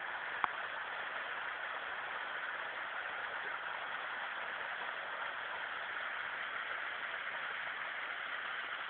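Steady rush of a stream flowing over rocks, with one brief sharp click about half a second in.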